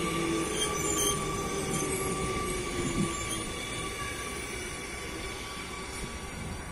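A train moving through a station, its wheels squealing in several steady high tones over a low rumble. A lower tone drops away about three seconds in, and the sound slowly fades.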